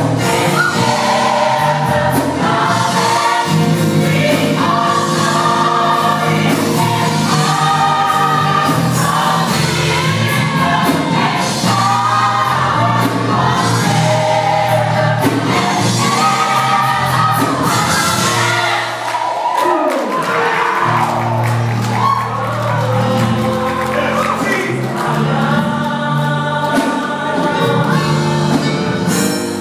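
Gospel choir singing over instrumental accompaniment with steady low bass notes, which drop out briefly about two-thirds of the way through.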